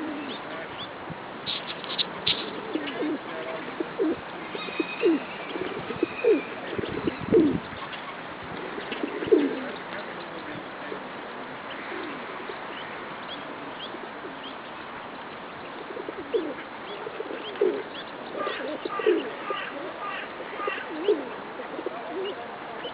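Birds calling: short low calls repeating in spells, some dropping quickly in pitch, with fainter high peeps mixed in, from ducklings and the adult birds around them.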